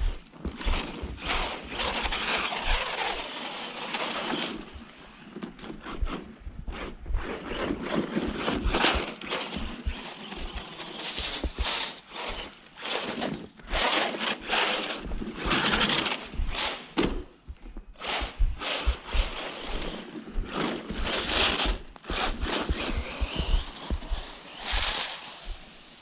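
Arrma Senton 3S RC truck's electric motor whining up and down in surges with the throttle as it drives and slides through wet snow, with tyres hissing and short knocks. Low thumps on the microphone run under it.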